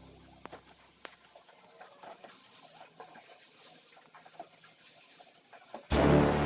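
Background music fading out, then a few faint scattered clicks and taps; about six seconds in, loud electronic music with a beat cuts in abruptly.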